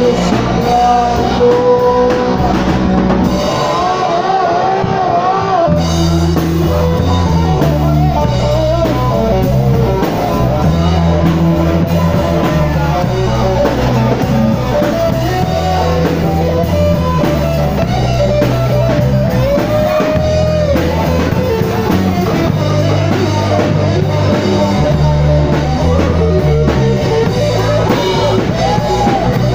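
Live rock band playing loud: an electric guitar, a sunburst single-cutaway of Les Paul type, plays a lead line with bent notes over drums, and the bass and full band come in heavily about six seconds in.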